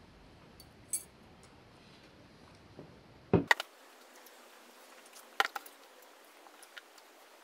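A few short clicks and knocks of tableware in a quiet room, with a louder knock about three and a half seconds in and a small cluster of taps about five and a half seconds in as an aluminium beer can is set down on the table.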